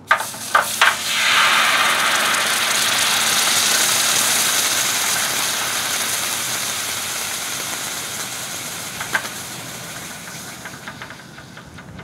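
A hot aluminum ingot set down with tongs into water in a metal mold, with a few clinks of metal on metal. Then a loud sizzling hiss as the water boils against the hot aluminum, swelling about a second in and slowly dying away as the ingot cools.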